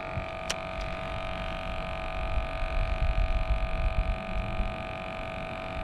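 A steady hum made of several fixed tones, over a low, uneven rumble that swells in the middle, with one sharp click about half a second in.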